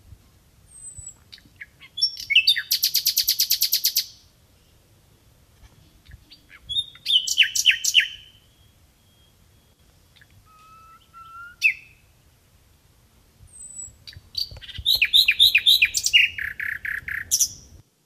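Recorded song of a common nightingale: four separate phrases of rapid repeated notes, trills and whistles, each a second or two long, with pauses of about two seconds between them. The recording cuts off suddenly just before the end.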